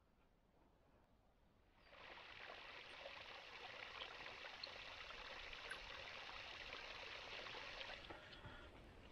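Thin stream of water pouring from a plastic pipe spout and splashing onto rocks. It is a steady trickle that starts after about two seconds of near silence and fades out near the end.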